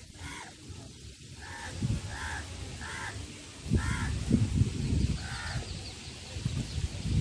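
Crows cawing, about seven harsh calls at irregular intervals. Louder irregular low rumbles run under them, strongest about four seconds in.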